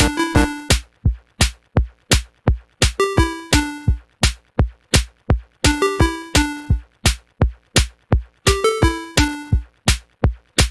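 Electronic music: a drum-machine beat of about four hits a second under short, clipped synth notes playing a repeating melody.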